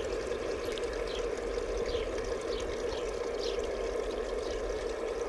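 Steady rush of running water, with faint short high chirps repeating above it.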